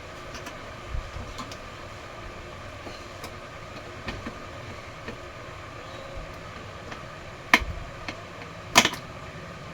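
Steady background hum with scattered light clicks, and two sharp knocks near the end, the second the loudest.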